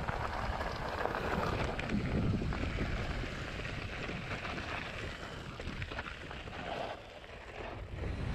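Mountain bike rolling downhill on a loose gravel track: wind rumbling on the handlebar-mounted camera's microphone, mixed with the crunch of tyres on gravel and many small rattles from the bike.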